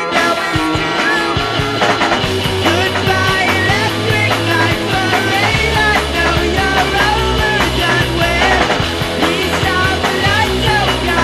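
Rock music with a bass line and a wavering melody line over it.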